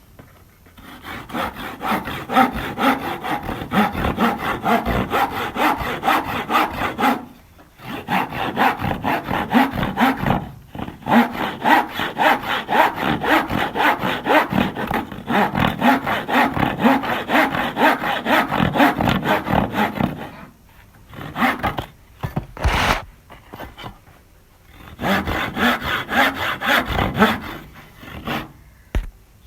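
Hand saw cutting through wood: rapid back-and-forth rasping strokes in several long runs, broken by short pauses. A single sharp knock falls in the longest pause, about two-thirds of the way through.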